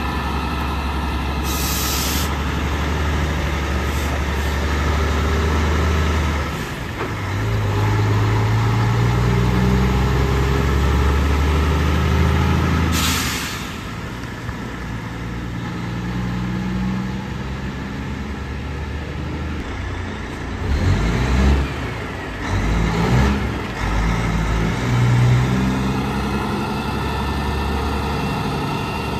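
Heavy semi-truck engines running, their pitch shifting as trucks move, with two short, sharp air-brake hisses, one about two seconds in and one about thirteen seconds in.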